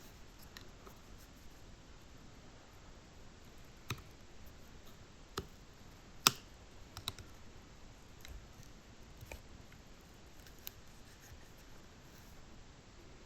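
Scattered sharp plastic clicks and snaps, one much louder about six seconds in: a screwdriver prying open the clip-together plastic housing of a heater blend-door actuator, popping its lugs apart.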